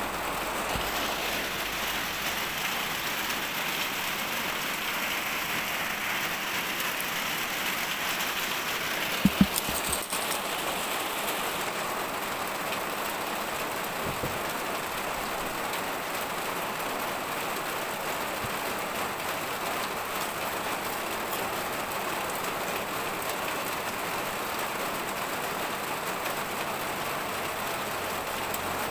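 Steady rushing hiss like rain or running water, with two sharp knocks close together about nine seconds in.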